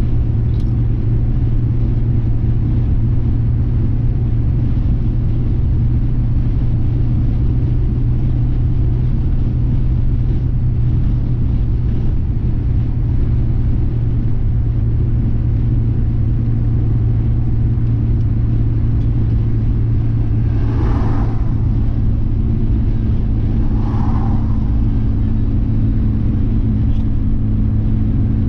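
Steady low rumble of a car's engine and tyres, heard from inside the cabin while cruising at highway speed. Two brief higher-pitched sounds come about three seconds apart near the end.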